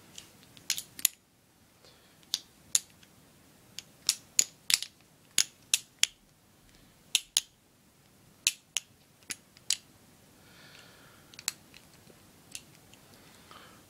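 Bear MGC balisong (butterfly knife) being flipped open and closed, its metal handles and latch striking together in irregular runs of sharp clicks, often in pairs.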